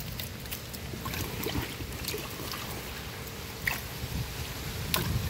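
Water trickling and dripping as it is tipped out of a plastic fish-carrier box, with scattered small knocks and taps as the box is handled.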